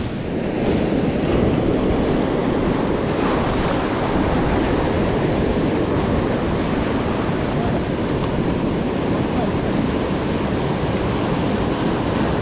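Sea surf washing steadily, with wind buffeting the microphone: a continuous rushing noise with no distinct events.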